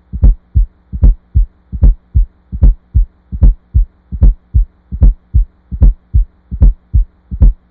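Recorded heart sounds with a fourth heart sound (S4 gallop) falling just before S1, the 'Tennessee' rhythm: a steady run of low thumps, about two and a half a second, over a faint steady hum. An S4 is the sign of stiff ventricles resisting filling, as in some cases of high blood pressure or thickened ventricles.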